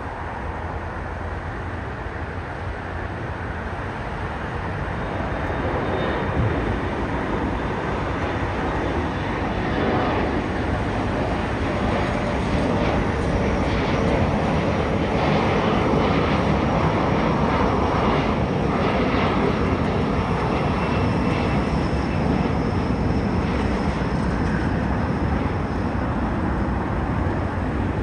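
Engines of an Embraer E175 regional jet climbing out after takeoff. The jet noise swells from about five seconds in, is loudest through the middle, then eases slightly as the aircraft climbs away.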